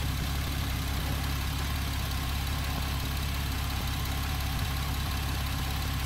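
Porsche Cayman S M97 flat-six engine idling steadily, hot at full operating temperature.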